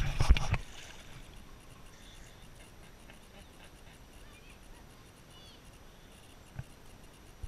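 Water knocking and splashing close to a paddleboard-mounted camera for about half a second. Then comes quiet river ambience, a faint hiss with a brief faint chirp about five seconds in and a couple of small clicks near the end.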